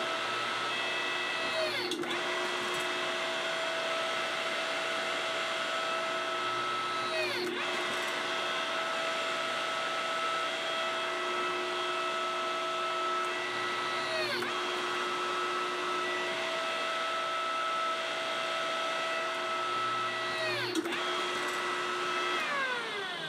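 Hydraulic press's pump motor running with a steady whine while pressing a silver blank into an impression die. About every six seconds, four times in all, its pitch dips sharply and comes back.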